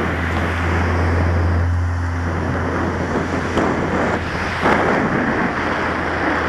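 Wind buffeting a helmet-mounted camera's microphone while cycling, a steady rushing with a low rumble that eases about halfway through. Two short knocks come in the second half.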